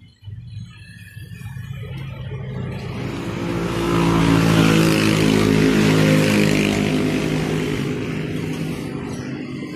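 A motor vehicle passing close by: its engine note swells over a few seconds, is loudest about halfway through, then fades away.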